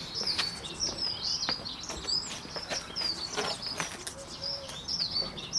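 Small birds chirping and twittering in a quick, steady run of short high notes, with a few light clicks mixed in.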